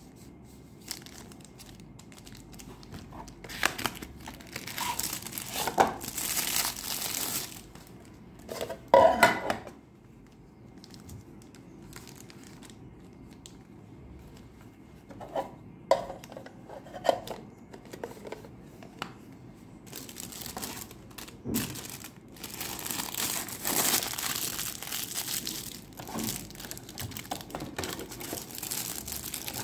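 Plastic packaging crinkling and rustling in irregular bursts as a fountain pen in a clear plastic sleeve is put back into its cardboard box and the box is wrapped. There is a quieter stretch in the middle and a longer run of crinkling near the end.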